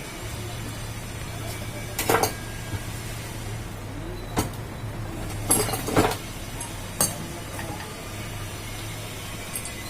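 Metal clinks and knocks from tools and parts of a ceiling fan being taken apart, five or six separate hits with a cluster about halfway through, over a steady low hum.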